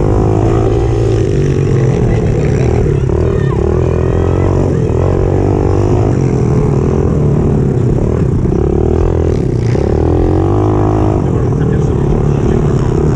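Pit bike's small single-cylinder engine revving hard under the rider, its pitch rising and falling over and over with throttle and gear changes through the ruts and turns.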